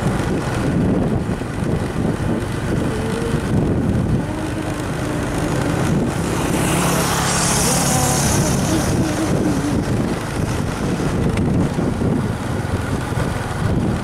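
Engine of a moving road vehicle running steadily, with road and wind noise. A hiss swells for a couple of seconds about halfway through.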